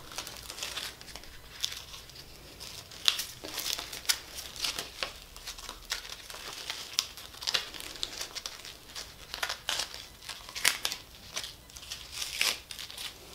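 Black heat-transfer vinyl being weeded by hand: excess vinyl peeled away from its clear plastic carrier sheet, with irregular crinkling and small sharp crackles.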